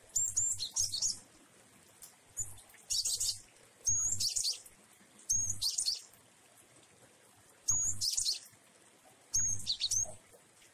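Java sparrow of the wingko colour variety singing: about six short, high, chirpy phrases spaced a second or two apart, each opening with a quick rising note followed by a rapid run of notes.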